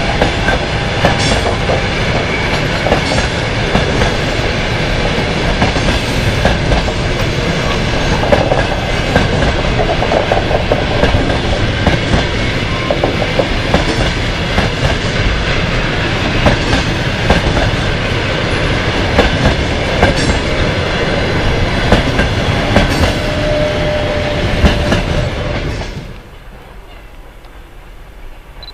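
A passenger train's coaches running past close by at speed, the wheels clattering on the rails with irregular sharp clacks over a dense steady rush. About 26 s in the sound drops abruptly to a faint, distant background.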